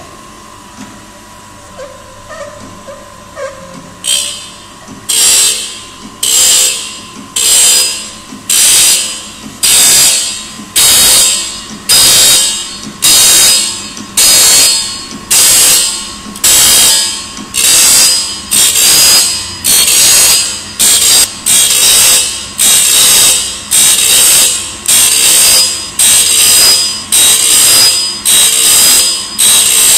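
Semi-automatic circular saw blade sharpener grinding the blade tooth by tooth. From about four seconds in, the grinding wheel gives a loud hiss against each tooth, fading after each stroke, about once a second as the blade is stepped on a tooth at a time. A steady motor hum runs under it.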